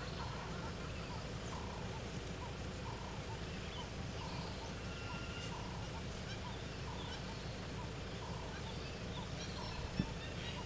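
Wild birds calling in the bush: one repeats a short note about twice a second while others add scattered higher chirps, over a steady low rumble. A single sharp click near the end.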